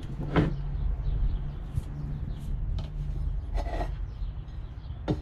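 A few light scrapes and knocks of a metal table-pedestal base and a wooden tabletop being handled and shifted on a plank floor, over a low steady hum.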